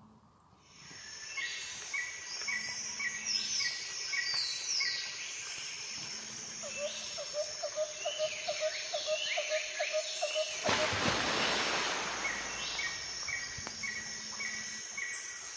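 Several songbirds singing in a spring garden, with repeated chirps and trills and a quick run of lower notes partway through. A broad rush of noise, like a gust of wind, comes about ten seconds in and lasts a second or two.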